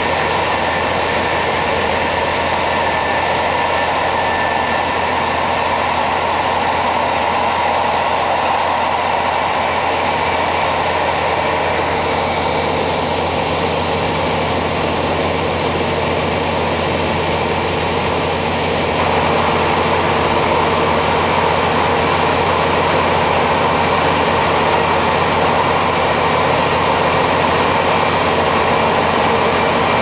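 Cabin sound of a KiHa 40 diesel railcar under way: its N-DMF13HZI diesel engine and the wheel and rail noise make one steady drone. It grows louder about two-thirds of the way through.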